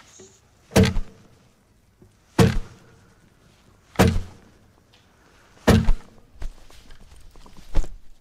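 Five heavy, booming impact hits spaced about a second and a half apart, gunshots in a music video's sound design, with a weaker knock between the last two.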